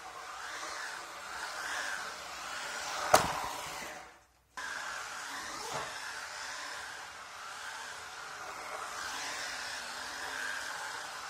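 UDI Breaker RC car's electric motor whining as it drives on a concrete floor, the pitch wavering up and down with the throttle. A sharp knock about three seconds in is the loudest sound, and the sound cuts out for half a second just after.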